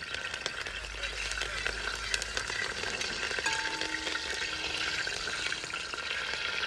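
Fresh curry leaves, mustard seeds and dried red chillies frying in hot oil in an aluminium uruli: a steady sizzle with many small crackles and pops as the leaves hit the oil.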